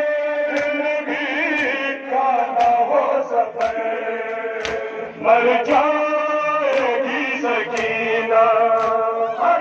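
Men's voices chanting a Muharram mourning lament (nauha), with a slap about once a second from hands striking bare chests in matam.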